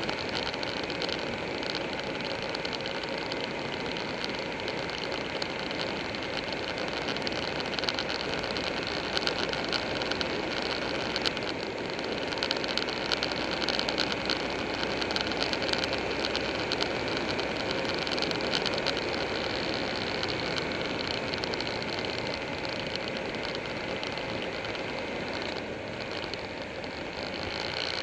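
Motorcycle riding at a steady cruising speed: engine running evenly under a constant rush of wind over the bike-mounted microphone.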